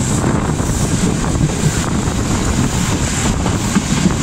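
Passenger train running along the track, heard from an open carriage window: a steady, loud rumble of wheels on rails with wind buffeting the microphone.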